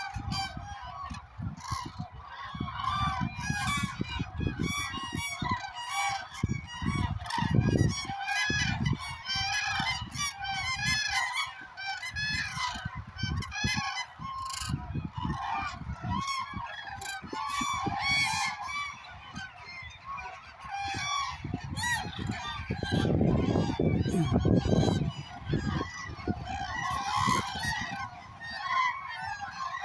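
A large flock of common cranes calling together, many loud trumpeting calls overlapping in a continuous chorus. A low rumble comes and goes underneath, strongest late on.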